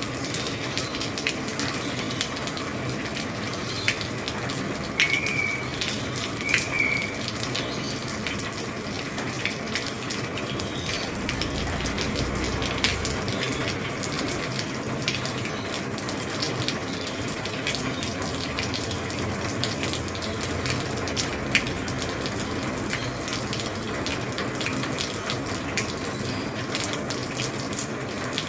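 Steady rain falling on an old roof, a dense hiss broken by many small drop ticks and taps. Two brief high chirps come about five and six and a half seconds in, and a low rumble swells briefly near the middle.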